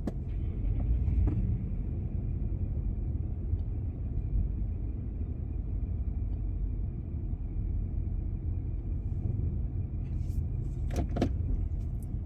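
Car interior rumble while driving slowly: a steady low hum of the engine and tyres.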